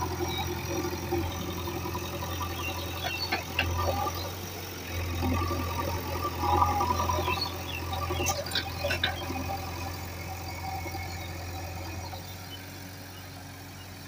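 JCB backhoe loader's diesel engine running, swelling in revs several times as the loader works the soil, with a few sharp metallic knocks in the middle. The engine sound fades a little near the end.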